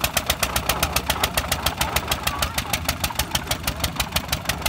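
Petter diesel engine running with a steady, rapid exhaust beat of about eight beats a second while belt-driving a heavy wheat thresher. It is labouring under the load and running slow, which the men put down to the engine being too small for the thresher.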